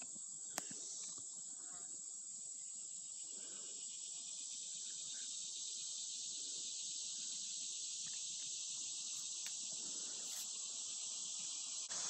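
Steady high-pitched drone of a summer insect chorus, with a single click about half a second in.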